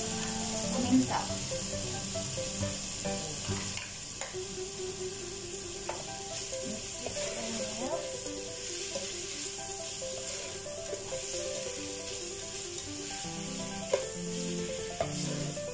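Sliced vegetables sizzling in hot oil in a nonstick pot as they are stir-fried, with a plastic spatula scraping and knocking against the pan a few times. Soft background music with a melody plays underneath.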